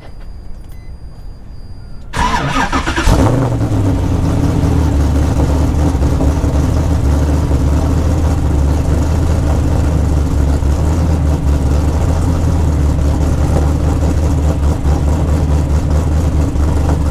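Cold start of a sports coupe's engine: the starter cranks about two seconds in, the engine catches and flares up briefly, then settles into a loud, steady idle.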